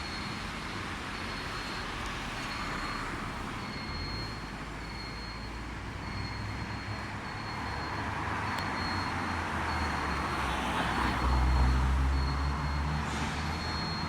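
Steady outdoor mechanical noise with a low motor hum that grows louder near the end, and a faint high beep repeating about once a second.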